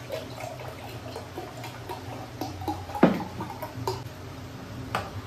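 Juice poured from a carton into a glass jar mug, a faint trickling pour with scattered small clicks and one louder knock about three seconds in.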